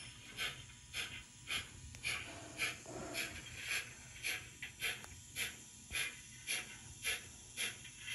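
Steam-locomotive exhaust chuffs from the DCC sound decoder of an Adams 415 radial tank engine model, played through the model's small speaker as it runs on a rolling road: an even beat of about two chuffs a second over a low steady hum.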